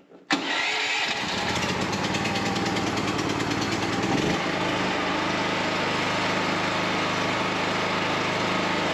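A new portable petrol generator's small engine starts abruptly, catching straight away, and runs on with a steady drone. This is its first start, set on choke. About four seconds in, its low note changes and it settles.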